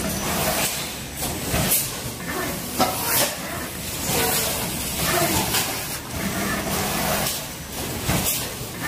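High-speed injection moulding machine cycling a 32-cavity sauce cup mould: a steady hiss and hum with occasional sharp knocks.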